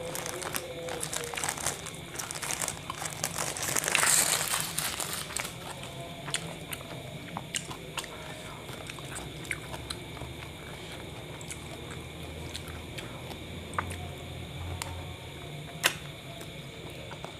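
Paper wrapper of a kebab crinkling as it is unwrapped and handled, loudest about four seconds in; then quieter scattered ticks, and a sharp click near the end as the kebab is bitten into.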